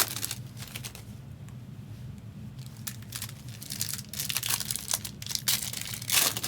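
Trading card pack wrappers crinkling and tearing as packs of Donruss Elite WWE cards are ripped open and the cards handled, in irregular bursts that are busiest near the end.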